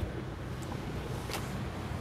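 Heavy rain falling outside, a steady hiss with a low rumble beneath it, with a short click near the start and another about a second and a half in.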